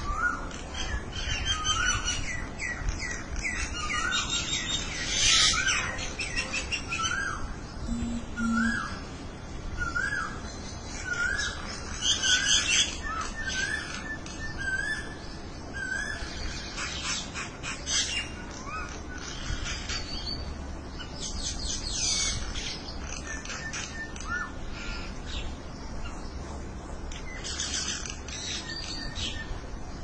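A small flock of common mynas calling: a run of short rising whistled notes, a little more than one a second, through the first half, mixed with harsh, scratchy chattering calls that carry on to the end.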